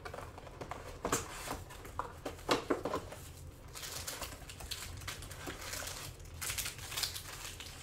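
Cardboard trading-card hobby box being opened by hand: scattered taps and clicks as it is handled, then rustling and crinkling as the lid flap is lifted and foil card packs are pulled out, about four and seven seconds in.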